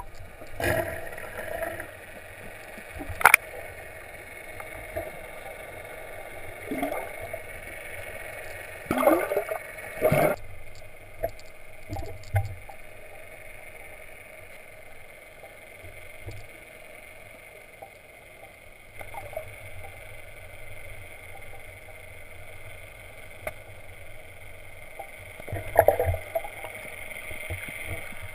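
Underwater sound picked up through a camera's waterproof housing: a steady muffled hum and hiss, broken by a few knocks and gurgling sweeps about three seconds in, around nine to ten seconds in, and near the end.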